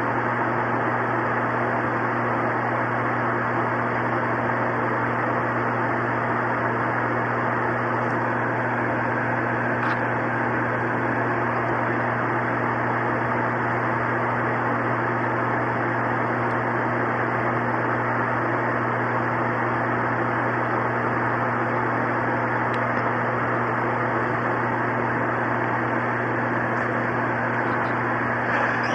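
Steady, unchanging hum with a hiss over it, with a faint click about ten seconds in.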